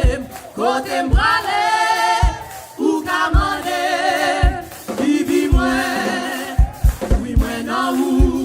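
Church singers performing a gospel hymn, the voices held in long notes with vibrato, with short low thumps beneath them.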